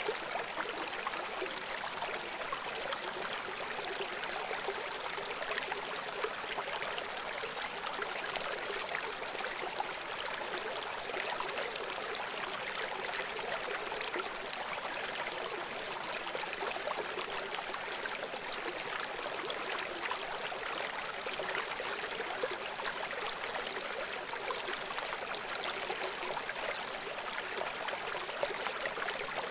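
Running water: a steady, even rush with fine crackle, unchanging throughout.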